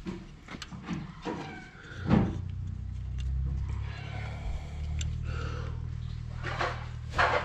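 Clicks and scrapes of hands working a Fiat 480 tractor's metal diesel fuel filter housing and its hoses, with a sharp knock about two seconds in and a louder scrape near the end. Under them runs a steady low engine hum.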